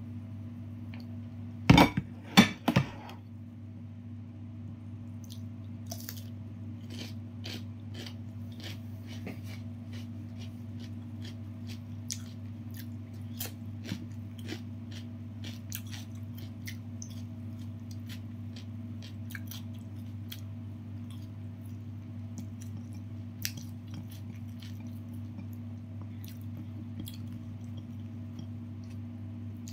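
Chewing and crunching of crispy fried chicken, with small scattered crackles as the breaded coating is torn apart by hand, over a steady low hum. A few loud knocks come together about two seconds in.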